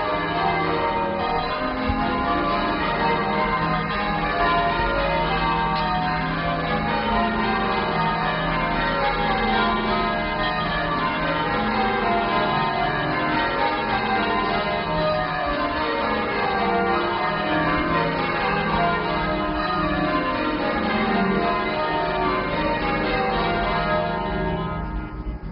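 Peal of church bells ringing: many bells struck in quick, overlapping succession, in the manner of English change ringing. The sound drops away sharply near the end.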